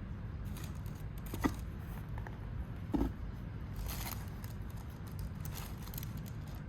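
Handling noises: a few light rustles, a sharp click and a low knock about three seconds in, over a steady low hum.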